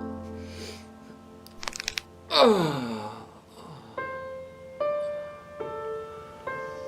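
Soft piano music, with a quick run of cracking pops about one and a half seconds in as a man's back is cracked under someone's feet, then a loud groan that slides down in pitch.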